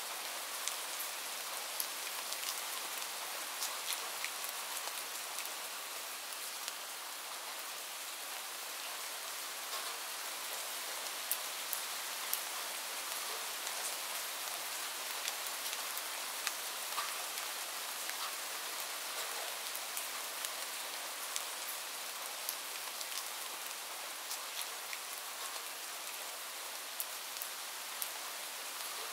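Steady rain ambience: an even hiss of falling rain with scattered sharp drop ticks.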